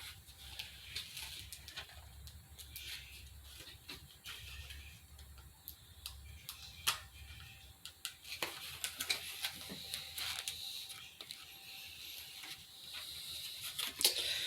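Plastic retail packaging being handled and pried at by hand, giving faint scattered clicks and crinkles, with one sharper click about seven seconds in.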